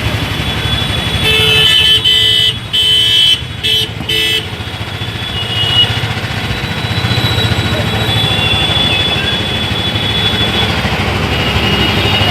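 A vehicle horn honking in a run of about four short blasts, one after another, over the steady rumble of engines in traffic.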